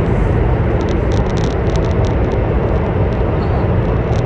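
Steady interior running noise of a CR400BF Fuxing high-speed electric multiple unit travelling at speed: a deep rumble with a rushing hiss over it, plus a few faint light ticks from the cabin.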